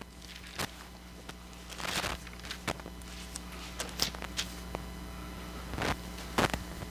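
Bible pages being turned: scattered soft rustles and clicks roughly once a second, over a steady low hum.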